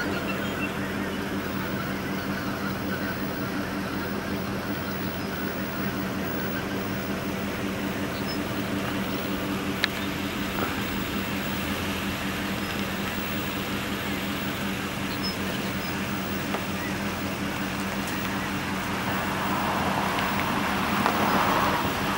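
A steady low engine hum, like a vehicle idling, with an even noisy haze over it that swells louder near the end.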